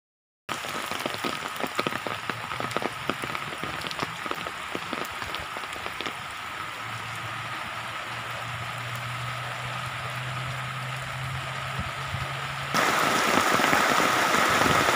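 Rain falling on and around floodwater, with many individual drops ticking close by and a faint low hum in the middle. About thirteen seconds in it cuts abruptly to the louder, steady rush of fast-flowing brown floodwater.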